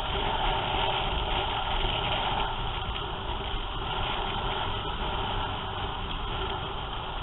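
Motorcycle engines running steadily at cruising speed in a group ride, with road and wind noise, heard through a helmet camera's microphone.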